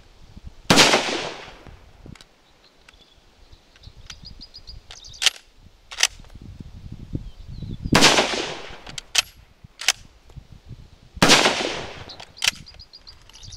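Three shots from a Ross Mk II (Model 1905) straight-pull rifle firing .303 British: one about a second in, one about eight seconds in, and one about three seconds after that. Sharp metallic clacks of the straight-pull bolt being worked back and forth come between the shots.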